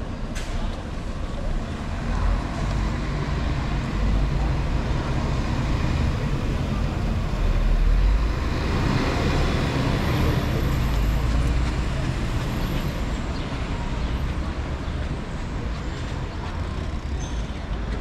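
A heavy vehicle's engine in street traffic passing close by. A low rumble swells to its loudest about eight seconds in, with a hiss at the peak, then fades.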